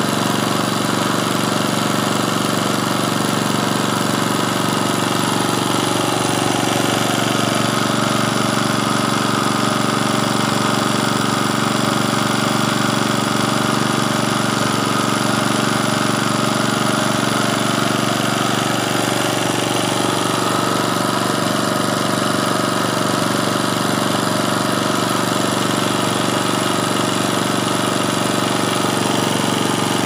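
A small engine running steadily at a constant speed.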